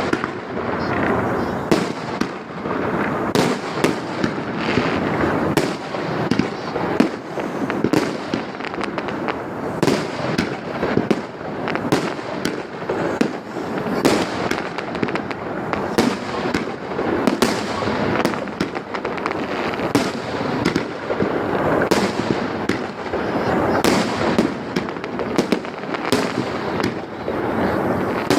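Fireworks display: a steady barrage of shell bursts and crackling, with bangs following one another several times a second throughout.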